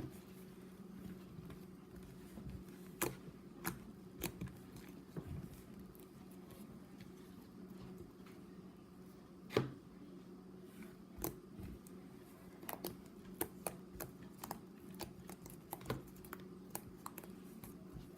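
Slime being squeezed and poked, making scattered, irregular soft clicks and pops over a steady low hum.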